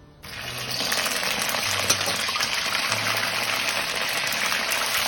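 Battered pork tenderloin strips going into oil at about 220 °C for the second, crisping fry of sweet and sour pork: the deep-frying oil breaks into a hard sizzle that starts suddenly, swells over the first second, then holds steady.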